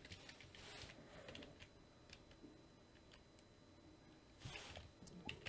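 Faint computer keyboard typing: a few scattered keystrokes, then a short run of keys about four and a half seconds in, with near silence between.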